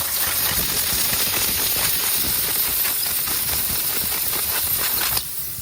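Pressurised air hissing steadily out of a punctured tire's sidewall around the plug tool pushed into the hole. It drops off sharply to a quieter hiss about five seconds in.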